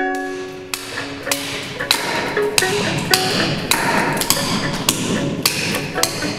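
Sharp, irregular hammer knocks on wood, about two or three a second, mixed with short plucked string notes. A plucked note dies away at the start.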